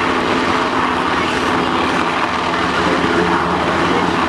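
Black Hawk helicopter hovering low over water: steady, loud rotor and turbine noise, with the even throb of the blades over a broad rush.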